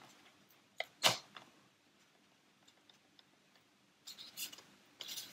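Hands adjusting wooden kebab-stick pegs in the foam blocks of a model-aircraft jig: two sharp clicks about a second in, a few faint ticks, then soft rustling near the end.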